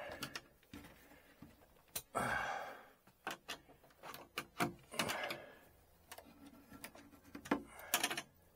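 Irregular clicks and taps of a hand wrench working a cab-light mounting bolt through the truck's cab roof, with short rustles of the wiring harness being handled.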